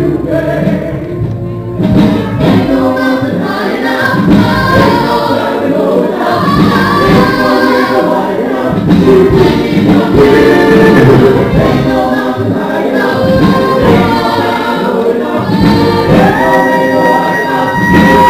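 A female lead singer and backing vocalists sing a soul song live, accompanied by a wind band. Long held notes come in near the end.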